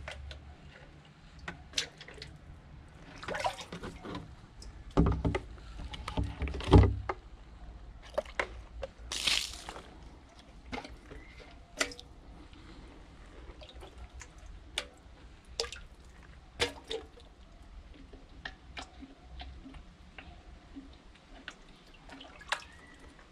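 Water dripping and splashing, with scattered sharp clicks and knocks and two heavy thumps about five and seven seconds in.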